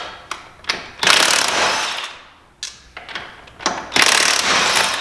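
Impact wrench run in two bursts of about a second each, working the lug nuts on a UTV wheel, with sharp clicks and knocks of the nuts and tools between the bursts.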